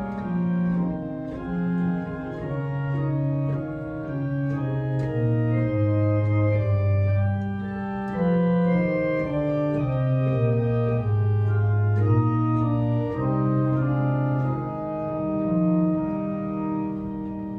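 Church organ playing a hymn tune in four-part harmony: sustained chords that change every second or so over a slow-moving bass line.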